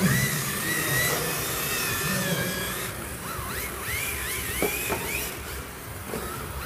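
MST FXX-D rear-wheel-drive electric RC drift cars: a high-pitched motor and drivetrain whine that swoops up and down in pitch as the throttle is worked through the slides.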